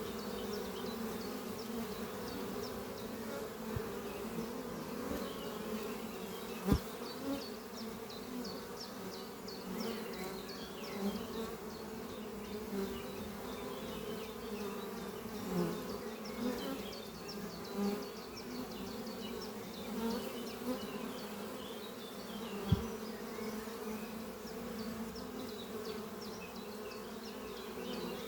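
Honeybees buzzing steadily at a busy hive entrance, with single bees swelling louder as they fly close past. A sharp tap sounds twice, about a quarter of the way in and again near the end.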